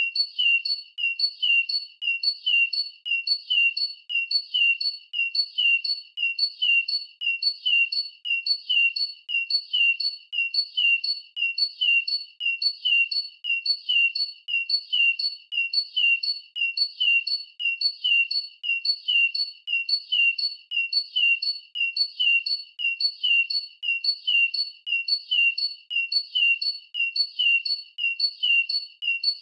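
Bird chirp call repeated over and over at an even pace, about two short high chirps a second, each one the same as the last, like a looped sound effect.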